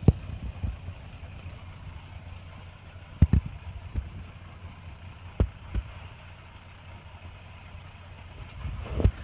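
Truck engine running steadily, heard from inside the cab, under an even hiss of heavy rain. A few sharp knocks come through, twice in quick succession a little after three seconds in.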